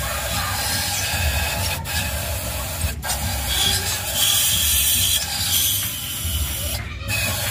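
Aerosol carburetor cleaner hissing in spurts through its straw into the carburetor of a Mitsubishi Colt T120, with brief breaks in the spray about two and three seconds in and near the end, over a steady low engine rumble.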